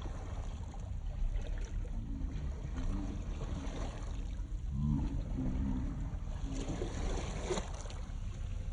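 Wind rumbling on the microphone over the sound of water at the shore, with faint distant voices about halfway through.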